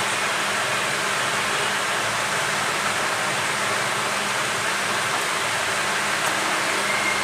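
Hot air rework station blowing a steady hiss of hot air onto a phone's charging port to loosen its solder.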